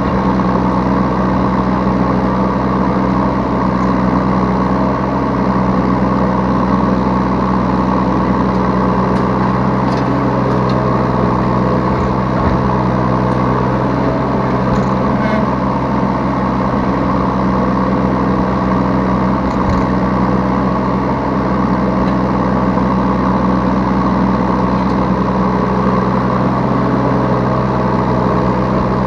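Yanmar B3 Sigma 3-ton mini excavator's diesel engine running steadily, heard from the operator's seat, with a few faint clicks and knocks from the machine's work.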